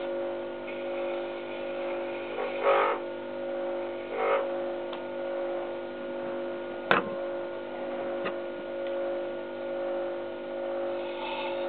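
Small wood lathe's motor running with a steady hum as it spins a mahogany workpiece. A tool scrapes against the spinning wood twice in the first few seconds, and there is one sharp click about seven seconds in.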